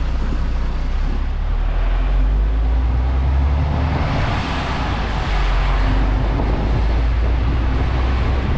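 Articulated lorry's diesel engine running at low speed during slow manoeuvring: a steady low rumble, with a swell of rushing noise about four seconds in.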